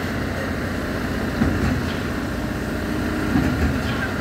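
Steady drone of heavy diesel machinery: the engines of truck-mounted concrete boom pumps running during the pour.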